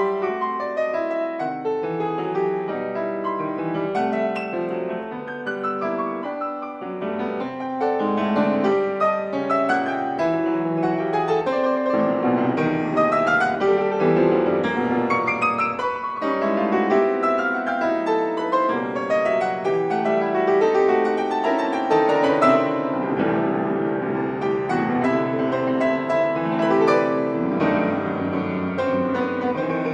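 Solo piano playing a classical concert piece, full of quick rippling runs that rise and fall.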